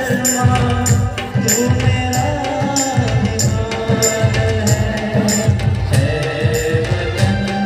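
Live folk song: a man's voice singing into a microphone over loudspeakers, with harmonium and a steady percussion beat of about two strokes a second.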